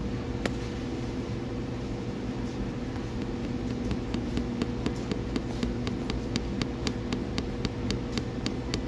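Steady electric hum of running equipment with a constant tone. From about four seconds in, a fast regular ticking comes in at about four ticks a second.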